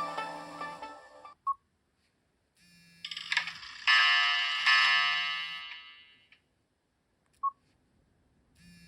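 Nokia 5530 phone tones: a chiming melody fades out, a short beep follows about a second and a half in, then about three seconds in a swell builds into a bright shimmering chime that dies away, and another short beep comes near the end.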